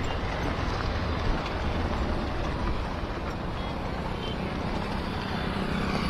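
Steady running noise of a moving auto-rickshaw, heard from inside it.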